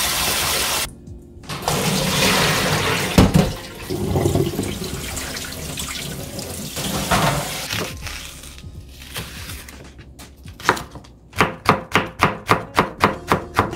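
Tap water running and splashing in a kitchen sink, with a single knock about three seconds in. Near the end comes a knife chopping on a cutting board, about four quick, even strokes a second.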